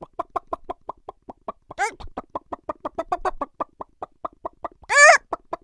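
Cartoon chicken clucking sound effect: rapid short clucks, about six a second, broken by a longer squawk rising in pitch about two seconds in and another longer squawk near the end.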